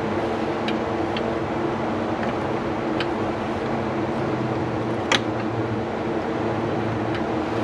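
A steady mechanical hum, with a few light ticks and one sharp click about five seconds in.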